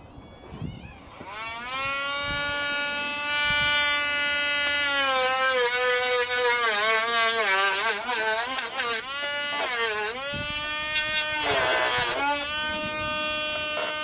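Dremel rotary tool spinning up about a second in, then cutting into the fins under a motorcycle's rear fender: a steady high whine that sags in pitch several times as the bit bites, with gritty grinding bursts.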